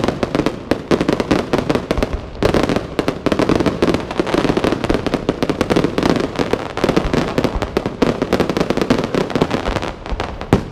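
Weco fireworks display: a dense, continuous barrage of shell bursts and crackling stars, many sharp cracks a second, thinning briefly about two seconds in.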